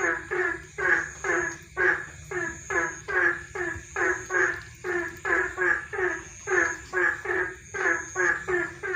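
Frogs calling at night: short croaks repeated quickly and evenly, about two to three a second, often in pairs, with a high steady insect trill coming and going behind them.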